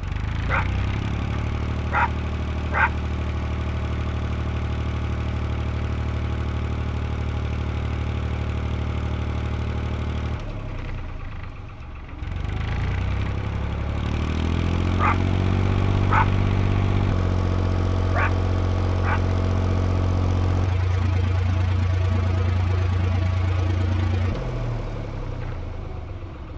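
Narrowboat diesel engine running steadily with a few sharp clanks. It drops away about ten seconds in, then picks up again, rising in pitch as it revs, and slows and falls away near the end.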